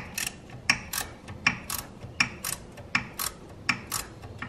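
Ratchet wrench clicking as it backs out the 15 mm bolts holding a front wheel hub assembly. The sharp clicks come mostly in pairs, one pair about every three-quarters of a second, with each stroke of the handle.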